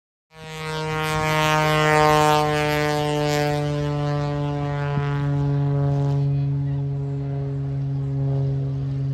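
Propeller aircraft at an air show, a steady loud drone of engine and propeller with a strong low hum that holds its pitch. It starts abruptly just after the beginning.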